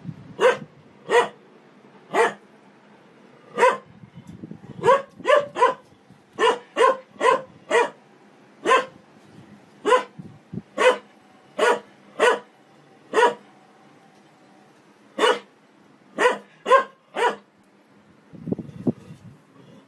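A large shepherd-type dog barking repeatedly at the turning drum of a front-loading washing machine: about twenty sharp single barks, some in quick runs of two or three, with a short pause a little past the middle.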